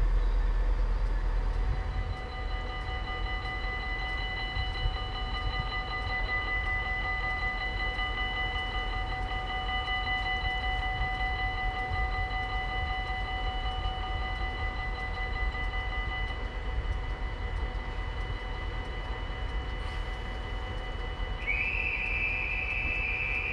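Level-crossing warning bells ringing steadily as the crossing closes and the barriers lower, stopping about two-thirds of the way in once the barriers are down. A brief high tone sounds near the end.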